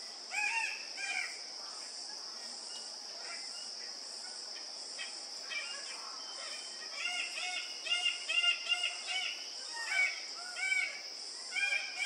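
Male red birds-of-paradise giving display calls: short, repeated calls, a couple about half a second in, then a fast run of about four a second through the second half. A steady high insect drone runs underneath.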